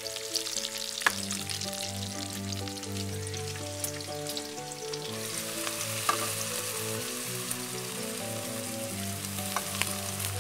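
Bacon strips sizzling and crackling in a frying pan; about five seconds in the sizzle grows stronger as shredded potatoes fry. Background music with slow held notes plays throughout.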